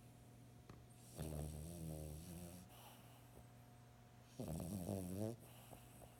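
Snoring: two snores, the first about a second in and lasting about a second and a half, the second shorter, a little over four seconds in.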